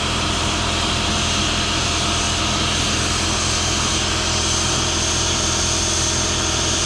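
Steady mechanical hum with a hissing rush from the setup that pressurises and heats a dented YZ250 two-stroke expansion chamber to push the dent out. It runs unchanged throughout.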